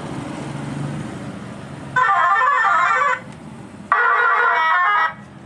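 Telolet horn made from a modified police siren module fed by a phone app, playing two short bursts of its wavering multi-tone tune, each about a second long, with a short pause between. A low steady hum comes before the first burst.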